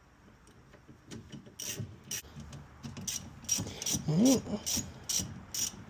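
Ratchet wrench clicking as it is worked back and forth on a brake caliper bolt: an irregular run of sharp clicks, a few a second, starting about one and a half seconds in.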